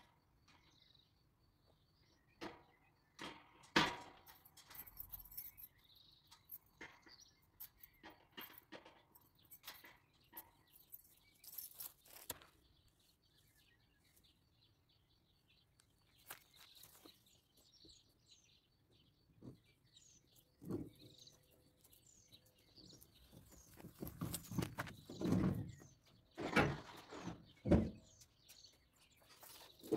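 Scattered light knocks and thuds with faint bird chirps, the knocks coming louder and closer together about 24 seconds in.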